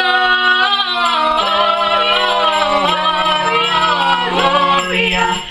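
Small group of teenage carolers, girls and a boy, singing a Christmas carol a cappella in harmony, a low voice holding long notes under the moving higher voices.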